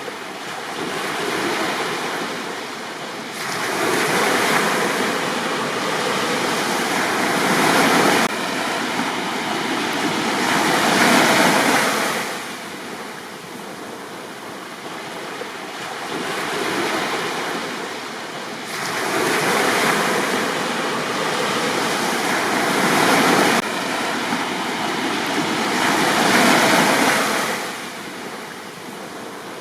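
Sea waves surging onto a beach and washing back, the surf rising and falling in swells every few seconds.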